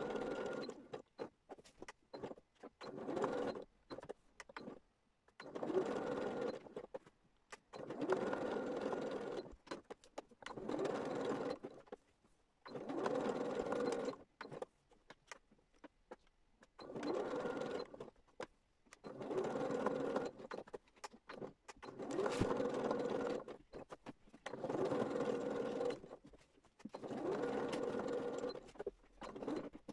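Domestic sewing machine stitching through pieced fabric in about ten short runs of one to two seconds each, stopping and starting again after brief pauses.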